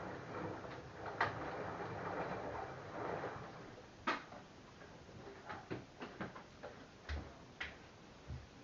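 LG F1089ND front-loading washing machine in its rinse cycle: the drum tumbles with a steady sloshing rush for about three seconds. Then it goes quiet apart from scattered light clicks and knocks from the machine.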